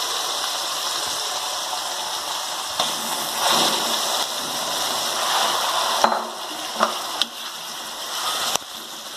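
Raw chicken pieces going into hot oil and ginger-garlic paste in a metal kadai over a low flame, sizzling, the sizzle swelling about three and a half seconds in as the chicken lands. A spoon then stirs the pieces, knocking against the pan four times, and the sizzle quietens near the end.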